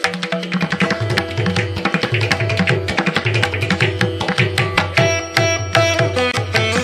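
Instrumental background music with a fast, steady drum rhythm under a pitched melody.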